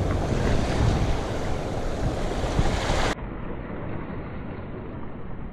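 Ocean surf washing, with wind rumbling on the microphone. About three seconds in, the sound drops abruptly to a quieter, duller rush.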